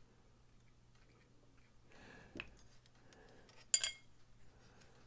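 Steel parts of a disassembled folding knife clinking together as they are handled: a soft tap about halfway, then one short, sharp metallic clink that rings briefly a little before the end.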